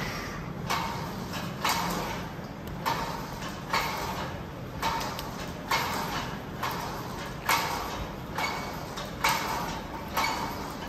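Gym cable machine worked in a steady set of repetitions: a rhythmic swish of the cable running over its pulleys with each pull, about one stroke a second.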